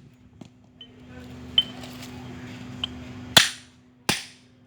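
Hammer blows on a scrap fridge compressor's metal: a pause with handling noise and two light metallic clinks, then two sharp strikes about three quarters of a second apart near the end.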